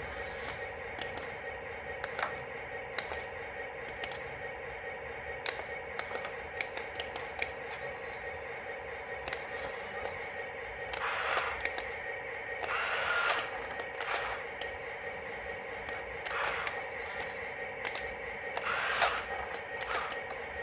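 Small electric motor of a toy RC vehicle whining steadily, with scattered clicks and four short bursts of gritty grinding noise in the second half.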